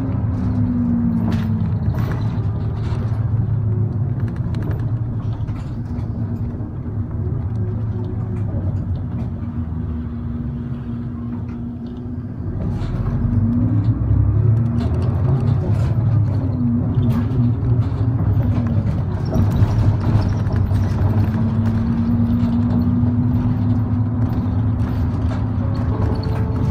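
Route bus's diesel engine and road noise heard from inside the cabin. The engine note is steady at first, dips slightly about halfway through, then rises and falls several times, with light rattles and clicks throughout.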